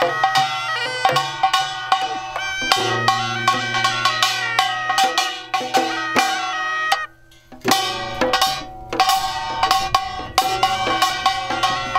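Korean traditional folk music: sustained melody instruments over a busy drum and percussion beat, with a brief break about seven seconds in before it resumes.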